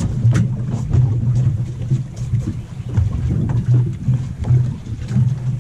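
A boat engine idling with a steady low hum, with wind buffeting the microphone and small irregular slaps of water against the hull.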